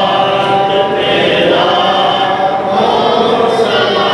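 A mosque congregation of men chanting a devotional recitation together in unison, a continuous sung chant with long held notes.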